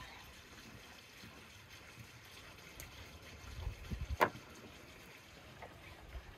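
Soft knocks and one sharp tap about four seconds in as raw lamb and a knife are handled on a wooden cutting board, over a low outdoor rumble of wind on the microphone.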